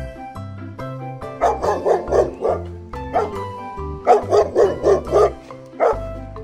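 Dog barking over background music: two quick runs of about five barks, each followed by a single bark.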